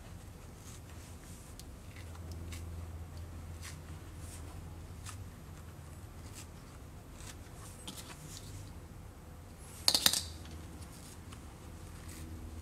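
Handling of a small pistol being fitted into cut foam inside a hard plastic case: scattered light clicks and taps over a low steady hum, with one sharp double click about ten seconds in.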